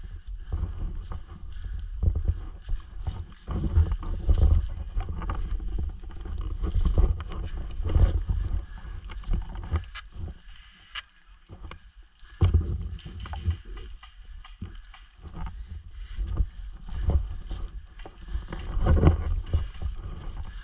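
Footsteps rustling and crunching through dry fallen leaves, with irregular low rumbling from movement and wind on a body-worn action camera, and scattered small clicks and knocks.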